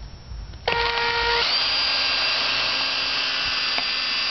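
Electric drill boring into a laptop's LCD screen: the motor starts suddenly under a second in, its whine rising as it comes up to speed, then runs steadily until it stops right at the end.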